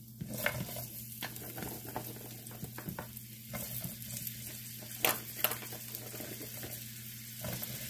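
Green beans and sliced onion sizzling as they go into hot grapeseed oil in a nonstick skillet and are tossed by hand, with scattered crackles and pops, the loudest about five seconds in.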